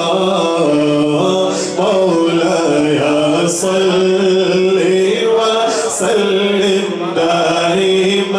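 A man singing a naat, a devotional Urdu poem in praise of the Prophet, in a chant-like style. He holds long notes that step up and down in pitch.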